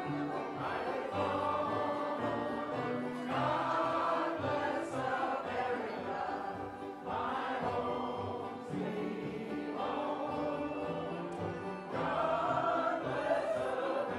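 Background music: a choir singing slow, held chords that change every few seconds.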